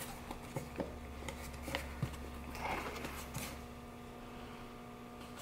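Faint handling sounds: light ticks and rustles as damp paper towels are lifted out of a foam-lined cardboard shipping box, over a steady low hum. The handling sounds die down after about three and a half seconds.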